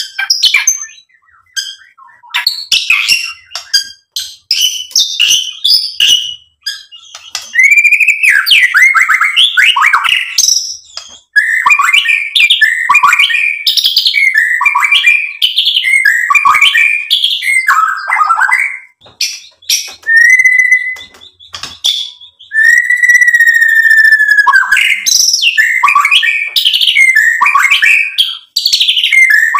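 Male white-rumped shama (murai batu) singing a loud, continuous, varied song: quick swooping whistled phrases mixed with rapid clicking notes, and one long held whistle about three quarters of the way through.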